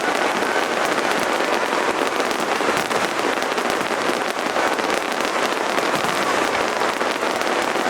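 Fireworks in a finale barrage, a dense, continuous crackle of many small bursts popping at once, like heavy rain.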